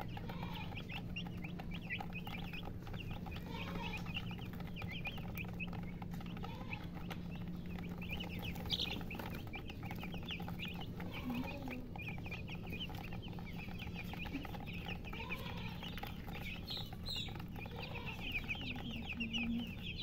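A flock of chicks peeping in a dense, continuous chorus, with a lower call now and then over a steady low hum.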